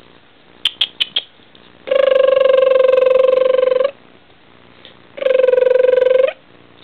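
Coton de Tulear puppy crying: a few short yips, then two long, steady, high-pitched whining cries, the first about two seconds long and the second about a second.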